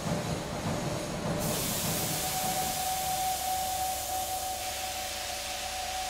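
Steam hissing from a dry cleaner's steam iron, starting suddenly about a second and a half in, over a low rumble. A steady high hum joins about two seconds in and holds.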